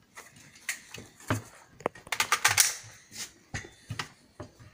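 Handling noise from a scoped AK-pattern rifle being taken up and settled on its bench rest: scattered clicks and knocks, with a quick rattle of clicks about two seconds in.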